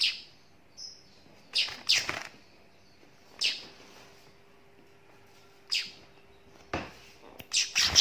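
Young weaver bird giving short, sharp chirps at irregular intervals, several in quick succession near the end.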